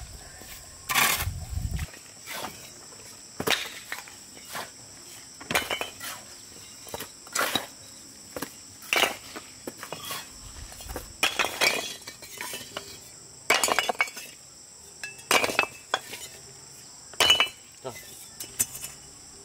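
Irregular sharp clinks and knocks of hard objects, roughly one a second, some with a short metallic ring, over a steady high insect drone.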